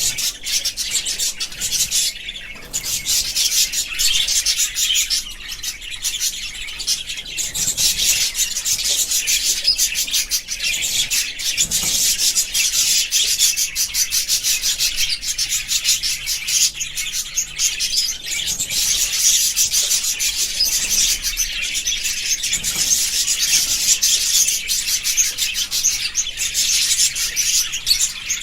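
A group of budgerigars chattering and chirping together without a pause: a dense, high-pitched twittering made of many quick, scratchy notes.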